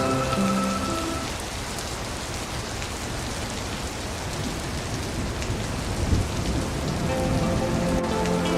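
Steady rain falling and splashing into a puddle, with a low rumble of distant thunder about six seconds in. Soft sustained tones fade out in the first second and come back near the end.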